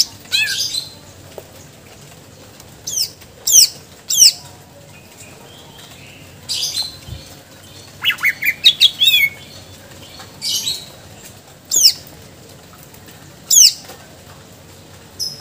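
Caged male greater green leafbird (cucak ijo) in full song: loud, sharp whistled notes that sweep down in pitch, given singly with gaps of a second or more, and a quick run of several notes about eight seconds in.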